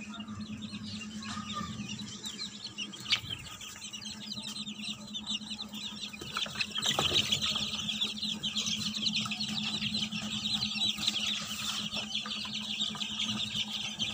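A brood of chicks peeping together, many short high cheeps overlapping, growing louder about six and a half seconds in. A steady low hum runs underneath.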